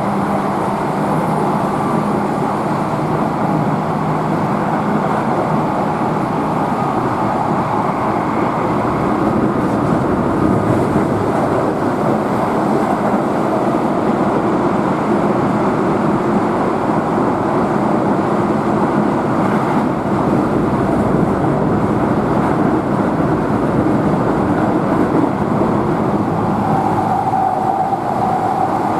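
Steady running noise of a Keihan electric train at speed, heard from inside: wheels rolling on the rails, with a low motor hum that fades out in the first few seconds.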